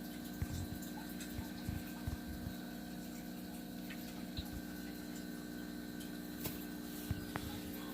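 Steady low electrical or mechanical hum in a small room, with a few faint light clicks and taps scattered through it.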